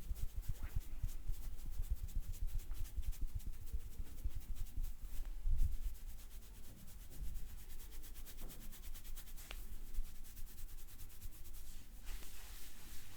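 Hands massaging the head and back: a fast run of light taps for about the first six seconds, then rubbing on skin and hair, with one sharp click about nine and a half seconds in.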